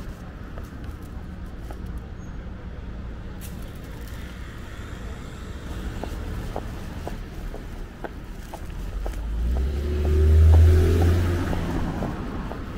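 A car passes close by, its engine and tyre noise swelling about nine seconds in, peaking and fading over the next three seconds, over a steady city street hum and faint footsteps.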